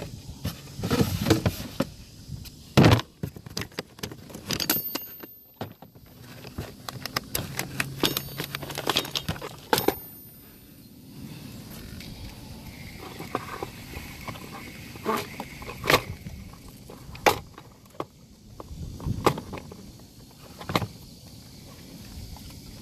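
Fishing tackle being handled: irregular clicks, knocks and light rattles, with one loud knock about three seconds in.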